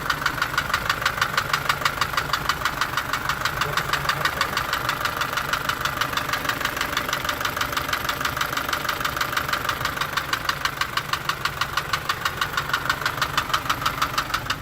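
Isuzu light-truck engine idling with a steady, rapid knocking tick, about seven a second. The noise never lets up, and the owner cannot tell what is making it.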